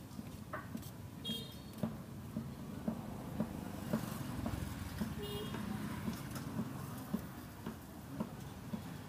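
Steady low hum of street traffic and motorbikes, with light clicks and taps of a spoon against a steel bowl and on bread, about two a second. A brief high chirp cuts in twice.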